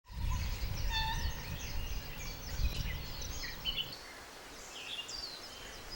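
Several wild birds calling, a scatter of short whistles and chirps with quick pitch glides. A low rumble sits under them and fades about two-thirds of the way through.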